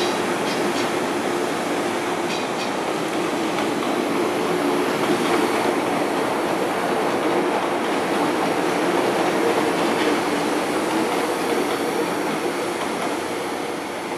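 MTR M-Train electric multiple units running along the track close by: steady wheel-on-rail rumble with a low hum running through it, and a few brief high ticks in the first few seconds.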